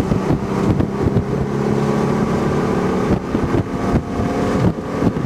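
A vehicle engine running steadily, with wind buffeting the microphone; after about three seconds the engine tone fades under choppier wind gusts.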